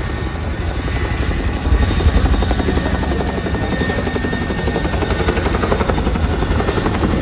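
Boeing CH-47 Chinook tandem-rotor helicopter flying past, its rotors chopping steadily and a little louder about two seconds in.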